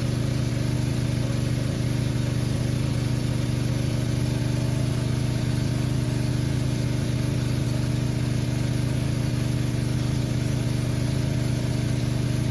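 Small engine of a water pump running steadily at one constant speed, draining the river.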